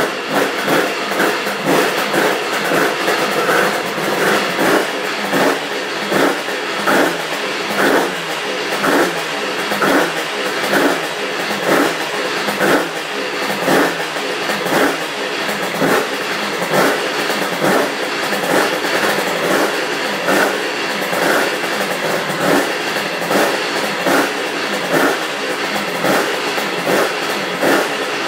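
Freshly rebuilt Yamaha TZR250 3XV two-stroke V-twin running on a race CDI, its note rising in short surges about once a second.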